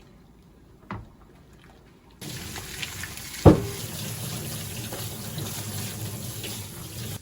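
Kitchen tap turned on about two seconds in, running steadily into a sink and shut off near the end. A single sharp clunk about a second after the water starts, louder than the running water.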